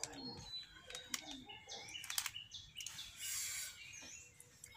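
Small birds chirping in short, quick calls, mixed with the rustle and sharp crinkles of a snack packet being handled and bitten from.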